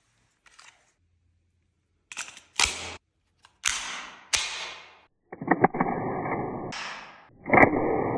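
Zoraki 925 blank-firing pistol: a string of separate sharp cracks and clicks, each dying away quickly, then about three seconds of a dense, muffled run of reports.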